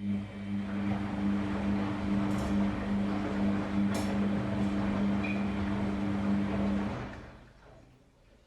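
Samsung WF-R1062 front-loading washing machine running, a steady motor hum with a rushing, churning noise over it. It starts suddenly, holds steady for about seven seconds, then winds down and fades out, as when the drum turns one way during a wash and stops.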